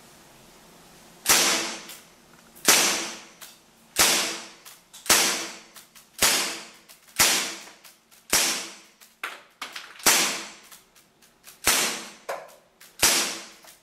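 WG M84 non-blowback gas airsoft pistol firing shot after shot, about one a second: each a sharp pop trailing off in a brief hiss of gas, with no slide cycling.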